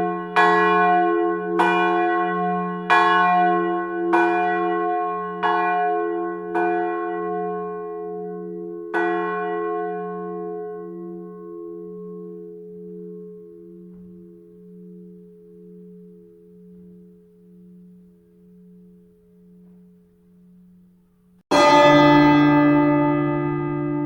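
A single church bell struck about seven times at the same pitch, roughly once every second and a quarter. After the last stroke its hum dies away slowly with a steady pulsing beat. Near the end a new, louder ringing tone starts suddenly.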